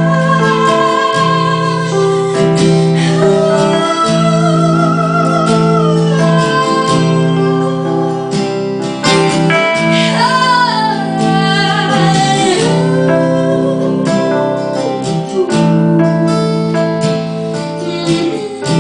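A woman singing long, held notes with vibrato and sliding pitches over steady guitar chords.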